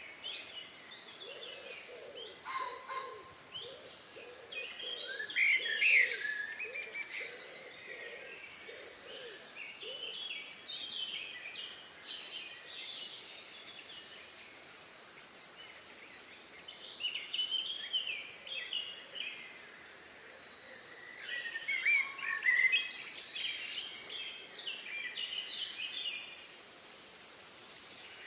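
Evening chorus of several songbirds singing over one another in short, varied, high chirping phrases. During the first third a lower call repeats evenly, about once a second.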